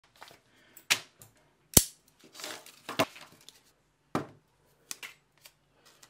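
A string of sharp clicks and knocks from small objects being handled on a wooden tabletop, the loudest a little under two seconds in, with a short rustle between them.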